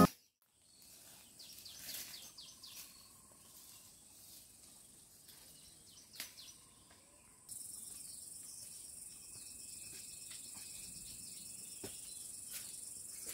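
Quiet outdoor ambience with faint scattered bird chirps. About halfway through, a steady high-pitched insect drone sets in and holds.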